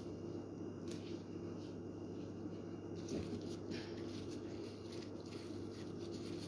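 Steady electric hum, with soft handling sounds and a few light clicks from plastic-gloved hands working battered food on a plate.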